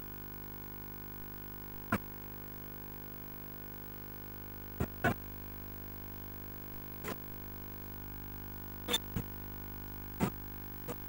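A steady electrical-sounding hum with about eight sharp clicks at irregular intervals, two of them in quick pairs.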